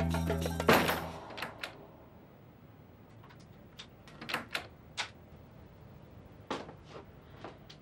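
A door is shut firmly about a second in, as background music cuts off. It is followed by scattered light clicks and taps against a quiet room.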